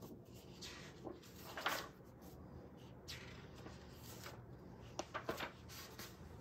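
Faint paper rustling from a picture book being handled and its pages turned, with a brief swish about a second and a half in and a few small clicks near the end.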